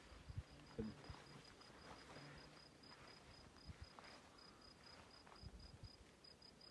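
Faint insect chirping in meadow grass: a thin high note pulsing rapidly and evenly. Soft rustles and light bumps of hands working through the grass and picking mushrooms sound under it.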